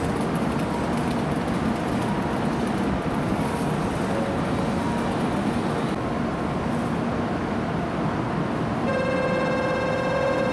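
A steady hum and hiss from a stopped N700-series Shinkansen and the platform around it. About nine seconds in, a steady electronic ringing tone starts and keeps sounding: the platform's departure signal.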